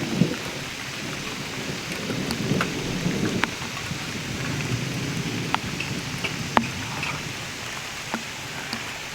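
Heavy rain pouring down steadily, with scattered sharp ticks of drops striking close by. A low rumble swells and fades about two to three seconds in.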